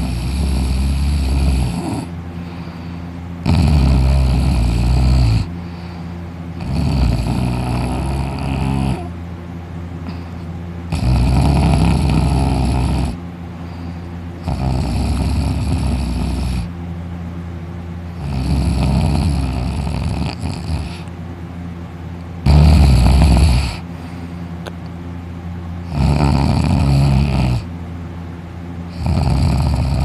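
A man snoring loudly in deep sleep, lying on his back with his mouth open: a long snore of about two seconds every three to four seconds, with a steady low hum between snores.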